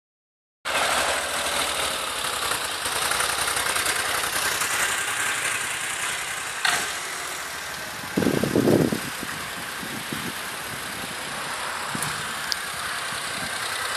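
Gilera GP800 maxi-scooter's 839 cc V-twin idling steadily, with a short louder burst about eight seconds in.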